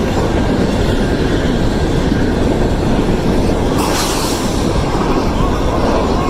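Freight train running by with a loud, steady rumble and clatter of wheels on rail. A sharp burst of high-pitched noise comes about four seconds in.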